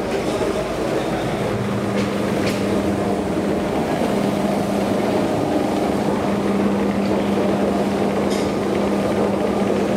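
Steady mechanical drone of a metro station hall, with a low, even hum that sets in about a second and a half in and holds, and a couple of light clicks.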